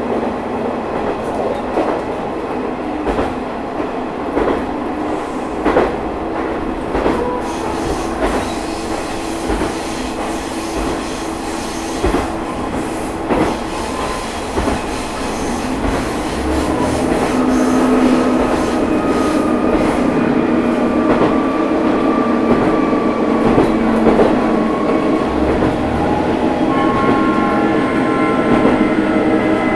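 Running sound inside a Matsuura Railway MR600 diesel railcar: a steady engine and drive drone with the wheels clicking over rail joints. About halfway through, the drone grows louder, and its notes climb slightly toward the end as the car pulls harder.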